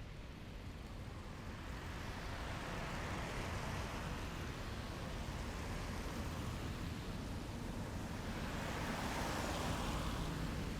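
Military vehicles passing along a street: a steady low engine rumble under a wash of tyre and road noise that swells as one vehicle goes by a few seconds in and another near the end.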